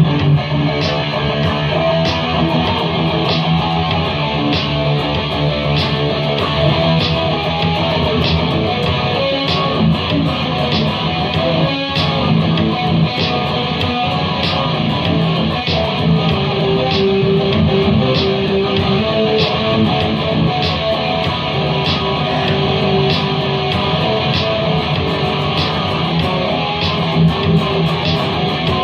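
Guitar music played over a steady beat, with sharp percussive hits about every three-quarters of a second.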